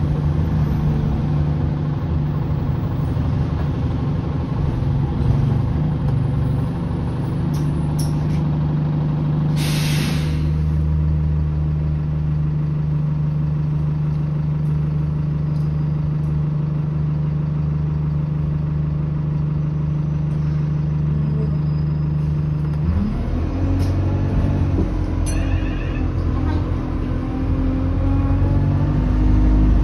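Alexander Dennis Enviro200 single-deck bus heard from inside the saloon: its diesel engine idles with a steady low hum, and there is a short hiss of air about ten seconds in. About 23 seconds in, the engine note rises as the bus pulls away.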